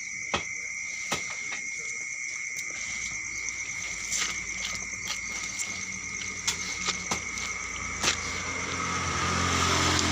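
Night insect chorus, crickets, ringing in steady high-pitched tones with scattered sharp clicks. A passing motor vehicle's engine swells in the last couple of seconds and is the loudest sound.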